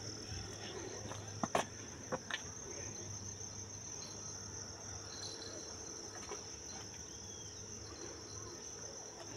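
Steady high-pitched chirring of insects, with a few short sharp clicks about one and a half and two seconds in.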